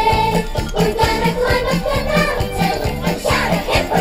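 Upbeat children's campfire song with a harmonica melody over a steady bass beat.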